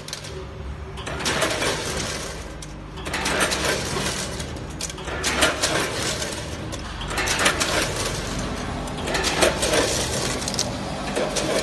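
Multihead weigher running with potato chips: bursts of chips rustling and clattering through the stainless steel hoppers, with clicks, about every two seconds over a steady low machine hum.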